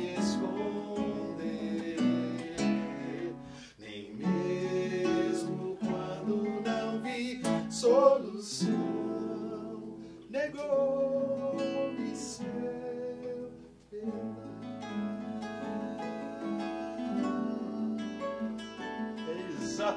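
Acoustic guitar playing a song accompaniment, with a voice singing along in places.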